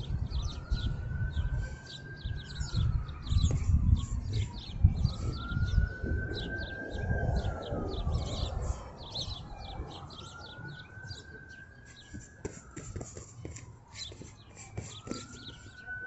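Birds chirping continually in quick, short notes, while a long whistled note that rises and then falls repeats four times, about every four to five seconds. Low rumbling noise is strongest in the first half and fades later.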